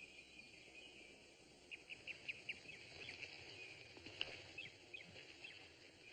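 Faint outdoor ambience: short runs of quick, high chirps over a soft steady hiss.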